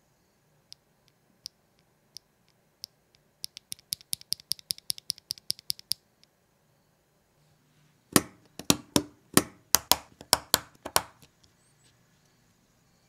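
Mechanical keyboard switch (Geonworks Black) worked by hand: a few spaced, sharp clicks, then a quick run of about five clicks a second. About eight seconds in comes a louder, fuller run of clacks, about three a second for some three seconds, as switches are pressed into the aluminium plate.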